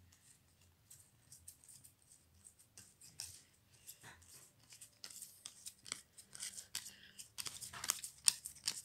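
Glossy football trading cards being handled and flicked through, a run of quick crisp card-on-card slaps and swishes that gets busier and louder near the end.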